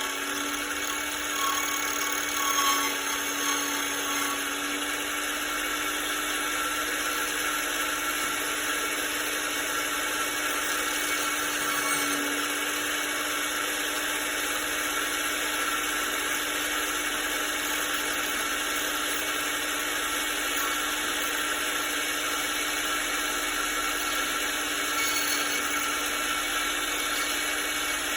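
Tempest 007A key cutting machine running with a steady whir and a held hum, its rotating cutter copying a master key onto a cylinder key blank. There are a few brief louder peaks in the first few seconds.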